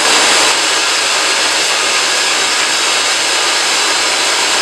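Wet/dry shop vacuum running steadily at full power, a loud even rush of air with a faint constant high whine.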